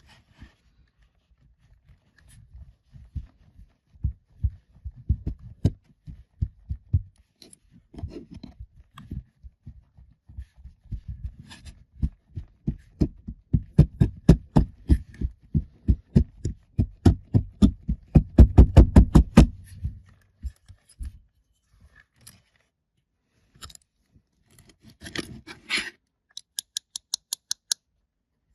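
Kinetic sand and its packaging being handled: a long series of soft low thumps that gets faster and louder towards the middle, then stops. Near the end come a short crinkle and a quick, even run of light ticks.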